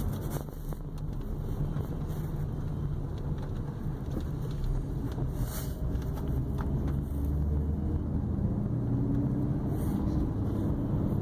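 Steady low rumble of a car running, engine and road noise, with a faint hum coming in during the second half.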